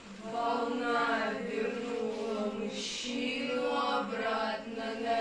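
Singing in a slow, chant-like line: two long held phrases with a short breath between them, about halfway through.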